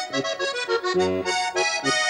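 Diatonic button accordion playing a Slovenian folk tune: a steady melody over its own bass and chord accompaniment, with low bass notes coming in about halfway through and again near the end.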